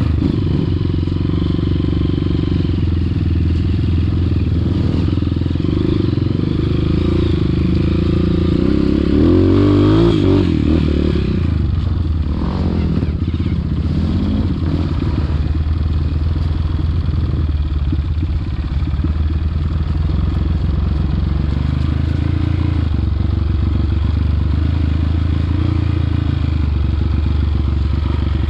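Off-road trail motorcycle engine running while being ridden, its pitch climbing and falling with the throttle twice, about ten and thirteen seconds in, loudest at the first.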